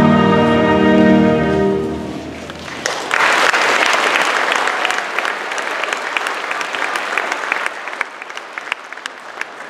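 A children's choir holds the last chord of a song, which dies away about two seconds in. About a second later the audience starts applauding, loud at first, then thinning to scattered claps near the end.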